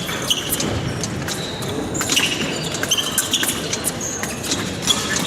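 Épée bout in progress: stamping footwork and knocks on the piste, with short high shoe squeaks and clicks of épée blades meeting, echoing in a large hall.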